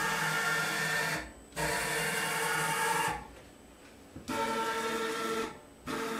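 Axis drive motors of a home-built concrete CNC milling machine making short moves: a steady whine of several fixed tones in runs of about a second and a half, stopping briefly between them, four runs in all.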